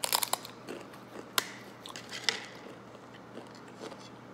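Crisp tortilla chip bitten off with a burst of sharp crunches, then chewed, with single loud crunches about a second and two seconds in.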